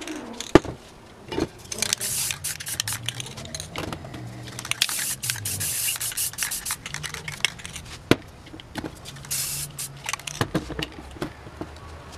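Aerosol spray paint cans hissing in long bursts as paint is sprayed onto a poster, a few seconds at a time, broken by sharp clicks and knocks from cans being handled. The loudest of these is a single click about half a second in.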